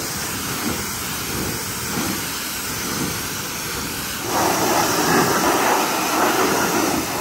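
Pressure-washer jet hissing steadily as it blasts dirt off a bare pickup-truck frame and wheel. The spray grows louder about four seconds in.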